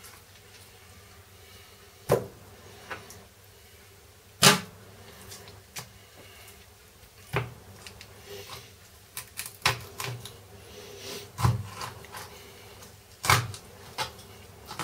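Small Boker PSK fixed-blade knife jointing a raw whole chicken on a plastic cutting board: irregular sharp knocks and clicks as the blade works through the joints and strikes the board, the loudest about four and a half seconds in.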